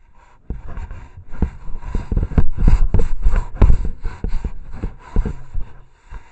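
An animal's furry body rubbing and scraping against a trail camera and the post it is mounted on, jolting the camera: loud, irregular scraping and knocking right against the housing. It starts about half a second in and dies away near the end.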